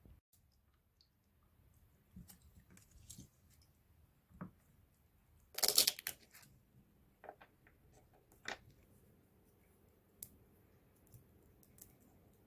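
Scattered small clicks and taps of hard resin 3D-printed parts, with a crackling burst about six seconds in as the thin printed supports are snapped off a road wheel.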